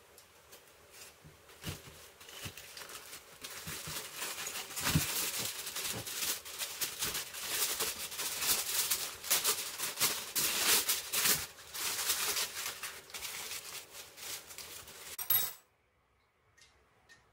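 Aluminium foil crinkling and rustling as it is handled and folded around food: a dense run of crackles that builds up a few seconds in and cuts off suddenly near the end.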